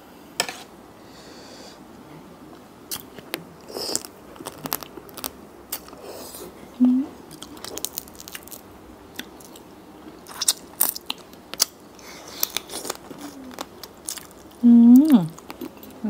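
Close-miked eating: crisp crunching bites and wet chewing of a spicy seafood salad with fresh raw vegetables. A short hummed "mm" comes about halfway through, and a longer one that rises and falls near the end.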